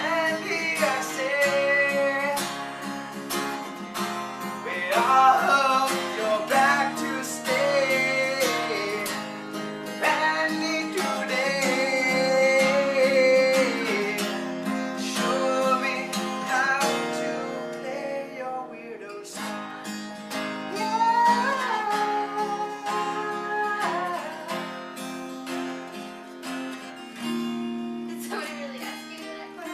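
Acoustic guitar strummed and played as chords, with a voice singing a melody over it; it fades near the end.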